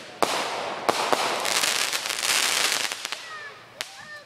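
Fireworks going off: a sharp bang just after the start, then a few seconds of dense crackling with a few louder pops, fading away near the end.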